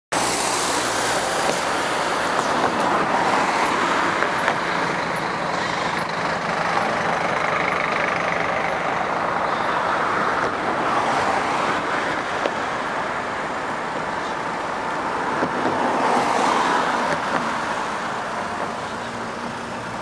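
Steady road traffic noise that swells and fades several times as vehicles pass.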